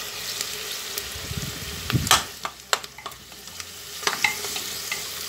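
Quartered onions sizzling in oil and caramelized sugar in a pressure cooker over high heat, stirred with a wooden spoon that knocks against the pan several times, loudest about two seconds in.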